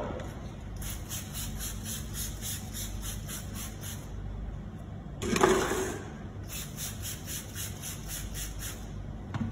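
Short, rapid scrubbing strokes of a hand brush on rough, degreaser-wet floor tile, about four a second, in two runs. Between the runs, about five seconds in, comes a brief louder squeal.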